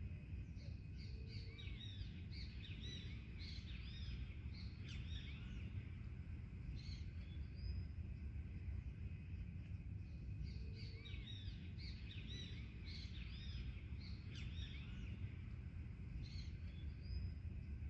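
Songbirds chirping in quick, arching notes, coming in busy bursts of several seconds, with a similar burst about nine seconds later, over a steady low rumble.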